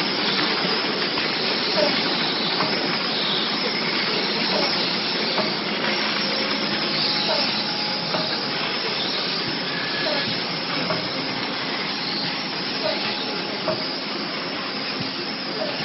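Drinking-straw production machinery running in a workshop: a steady hissing hum with faint short chirps recurring roughly once a second.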